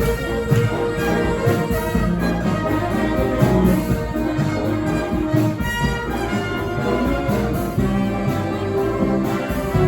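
A brass band playing live: horns hold and change sustained notes over a steady percussion beat.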